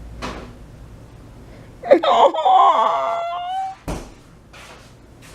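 A dog giving one long whining howl, held on a high, steady pitch for nearly two seconds. A short knock follows.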